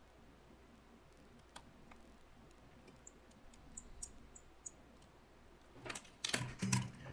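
Small tools and phone parts being handled during a phone repair: scattered light clicks and ticks, then a louder cluster of clicks and handling noise near the end.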